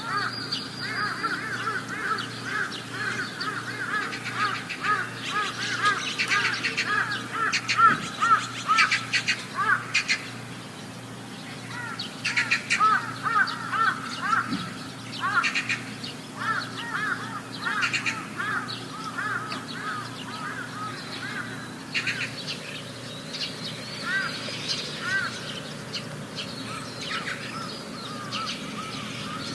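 Birds chirping in rapid runs of short, repeated, high calls, several per second, with pauses between runs and a steady low hum underneath.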